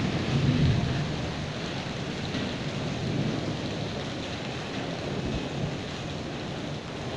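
Hailstorm: rain and hail falling in a steady hiss, with a low rumble in the first second or so.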